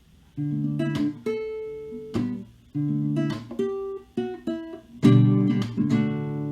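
Acoustic guitar intro music, plucked and strummed chords.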